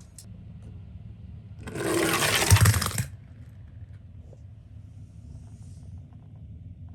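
Miniature die-cast toy cars rattling and sliding across cardboard in one burst about a second and a half long, with a knock near its end, over a low steady hum.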